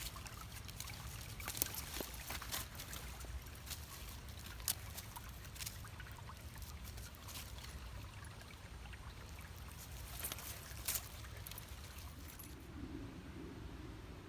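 Shallow creek water trickling and splashing, with many irregular sharp splashy ticks. The bright upper splash noise falls away near the end.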